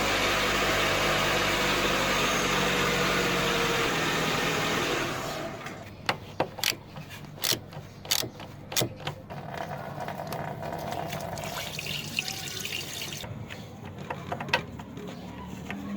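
A loud, steady rush of running water that stops about five seconds in, followed by a series of sharp clicks and knocks and then a quieter steady noise.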